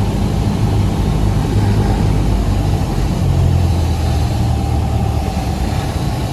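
Cessna 172's piston engine and propeller running steadily, a low drone.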